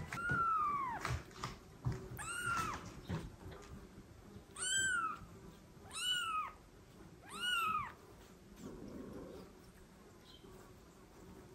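Young kitten mewing: five high-pitched cries, each rising then falling, about one and a half seconds apart, then stopping about two-thirds of the way through.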